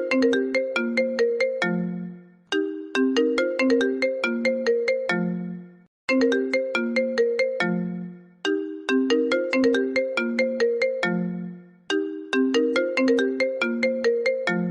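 iPhone ringtone playing: a short melody of quick plucked, marimba-like notes that ends on a low held note and repeats about every three and a half seconds.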